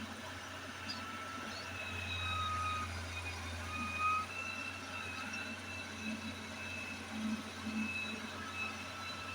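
Daewoo excavator's engine running steadily, with a low hum and a high whine that shifts slightly in pitch.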